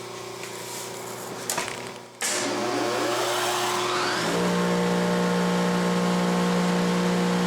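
A steady electrical hum, then about two seconds in the planer's 7.5 hp three-phase cutter head motor comes on and spins up with a rising whine, settling at full speed into a steady, loud running hum about four seconds in. It runs on new bearings and is still kind of noisy.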